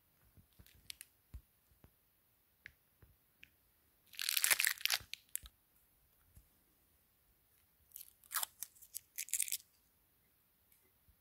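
Packaging being torn open by hand: two rough tearing bursts, one about four seconds in and a longer one about eight seconds in, with light handling clicks around them.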